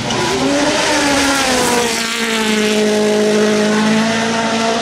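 Rally car engine revving hard on a gravel stage, climbing in pitch for about two seconds and then holding a steady high note, over a constant rushing hiss of tyres and gravel.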